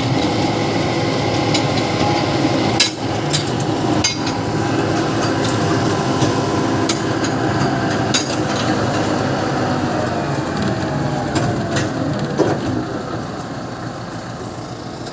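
An engine running steadily, with a few sharp knocks or bangs over it; near the end its pitch slides down and it grows quieter.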